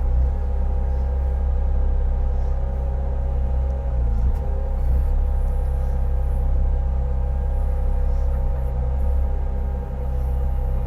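An engine running steadily with a constant low drone and hum, dipping briefly in pitch about four seconds in.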